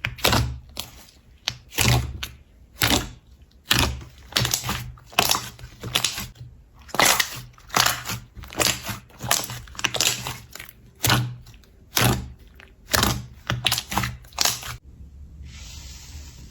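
Slime being squeezed and pressed by hand, making a crackling pop about once a second. Shortly before the end the pops stop and give way to a steady rustling hiss.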